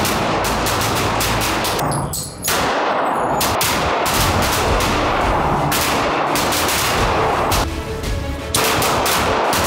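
Rapid handgun fire from several shooters on an indoor range, shots overlapping into a dense volley that breaks off briefly about two seconds in and again near the end.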